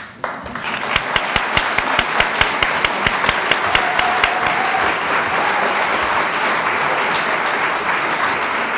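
A large audience applauding, starting abruptly. Close, sharp claps stand out in a quick, even rhythm over the first few seconds before blending into the steady applause.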